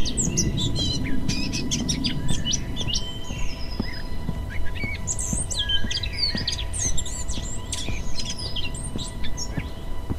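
Many small birds chirping and tweeting in quick, overlapping calls, over a low rumble of outdoor background noise and a faint steady hum.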